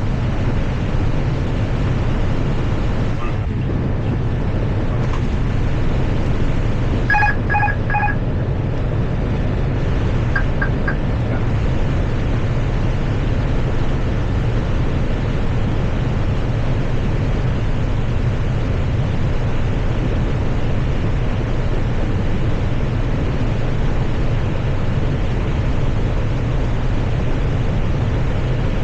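Steady low rumble of airflow and engines inside an airliner cockpit on approach. About seven seconds in, three short electronic beeps sound in quick succession, and a few seconds later three fainter, higher beeps follow.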